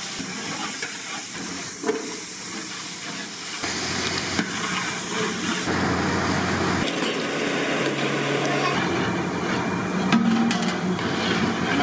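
Cooking sounds from a large aluminium pot across several quick cuts: a steady hiss of vegetables frying in oil and of steam, with a few short knocks about ten seconds in.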